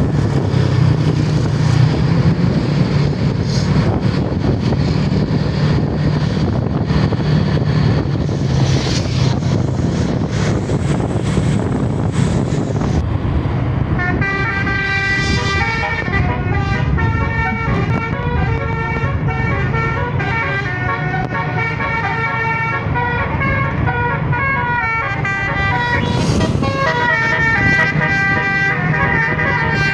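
A bus engine runs steadily under road or wind noise. About halfway through, a Basuri multi-tone 'telolet' bus horn, a 12-note set, starts playing a melody of quick changing notes. The melody keeps going to the end, broken briefly by a whoosh of noise near the end.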